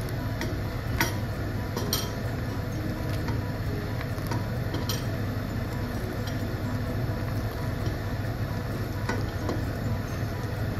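Pot of pinapaitan soup boiling in a stainless steel pot, with a ladle clinking against the pot now and then as it is stirred.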